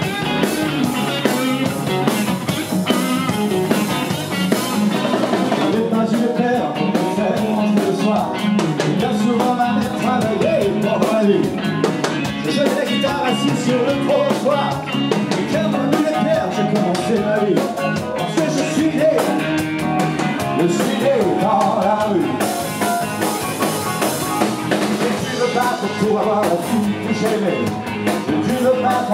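Live rock and roll band playing: electric guitar and drum kit, with a male voice singing over them.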